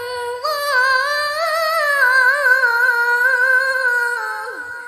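A woman's solo Qur'an recitation (tilawah) in a high, melodic voice through a microphone. She holds one long, drawn-out note with wavering ornaments, and it trails off near the end.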